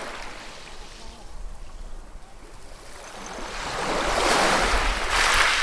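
Ocean waves breaking on a shore, a steady wash of surf that swells into a louder crash in the last couple of seconds, then falls back.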